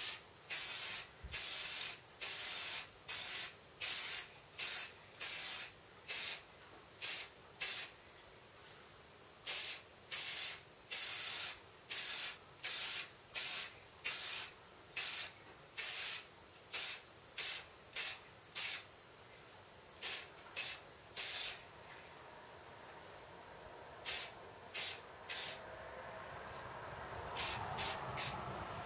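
Aerosol spray-paint can sprayed in many short bursts of about half a second each, in quick succession with a few longer pauses, laying on a first coat of black paint.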